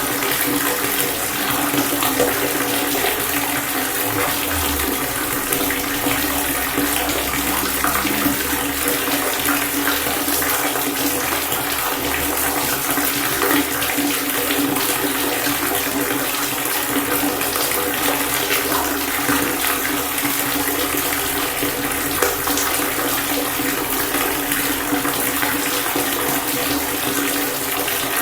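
Water pouring in a steady, unbroken rush.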